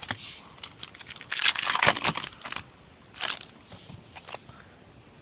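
Trading-card pack wrapper crinkling and cards rustling and sliding as they are handled, with a louder crinkling burst about a second and a half in and light clicks of cards.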